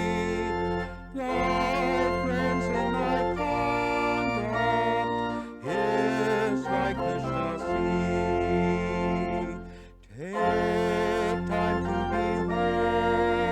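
Organ music: sustained chords played in phrases, with brief breaks between them.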